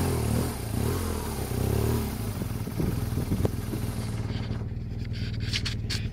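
An adventure-touring motorcycle engine running as the bike rides over a soft, rutted dirt track, its pitch wavering with the throttle and growing fainter. About four seconds in, wind buffeting and knocks on the microphone come in.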